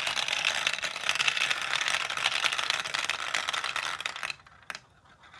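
Steel marbles clattering down through the stacked plastic cubes of a Q-Ba-Maze 2.0 marble run, a dense stream of rapid clicks and rattles that stops about four seconds in. A couple of single clicks follow near the end.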